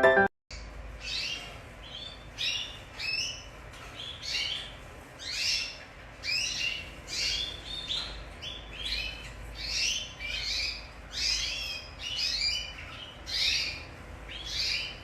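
Repeated high-pitched chirping calls from an animal, about one to two a second, over a faint low hum.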